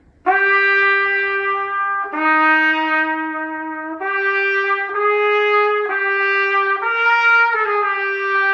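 A trumpet played solo, blowing a few try-out notes: about six steady, held notes of one to two seconds each, moving between a few nearby pitches.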